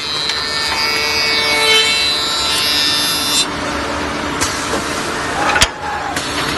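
CNC tenoning machine running: a high, many-toned spindle whine over steady machine noise that stops about three and a half seconds in, then a single sharp knock near the end.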